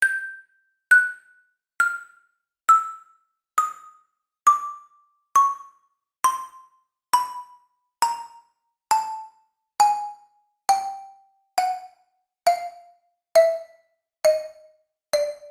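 Cartoon footstep sound effect for walking down stairs: a slow, even series of short struck notes, about one a second, each a step lower in pitch than the last.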